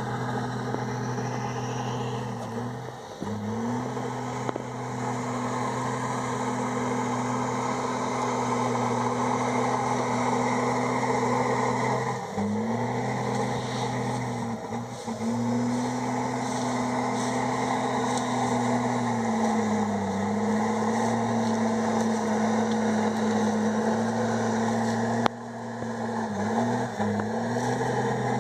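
Komatsu D51EX bulldozer's diesel engine running steadily under load, its pitch dipping briefly several times as it lugs down and picks back up.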